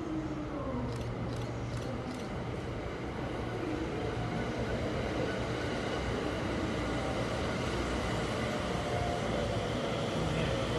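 JR West 285 series sleeper electric train running through a station without stopping: steady wheel-on-rail running noise that grows gradually louder as the cars pass close by, with a few short ticks in the first two seconds and a faint steady whine in the second half.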